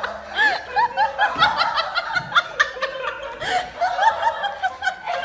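A person laughing in a quick run of short, high-pitched laughs.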